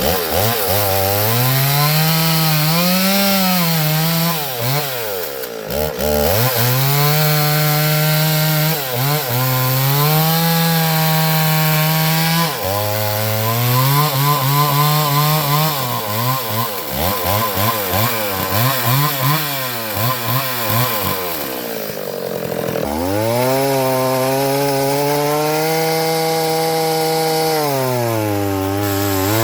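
Chainsaw cutting through pine logs, the engine held at high revs under load for long stretches. Several times it drops back, about five seconds in, at about twelve seconds and again around twenty-two seconds, then revs up for the next cut.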